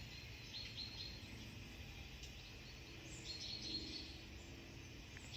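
Songbirds chirping in woodland: clusters of short, high chirps about a second in and again past the middle, over a faint steady background rumble.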